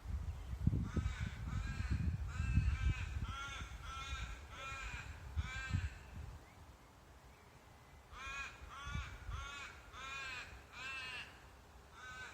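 A crow cawing in repeated harsh calls, about two a second: a run of about nine, a pause of about two seconds, then about five more. A low rumble sits under the first run.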